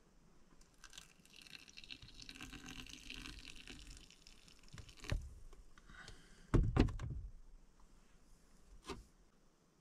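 Water poured from an insulated jug into a glass of yerba mate, a steady trickling fill for about three seconds. A few short thumps follow, the loudest about six and a half seconds in.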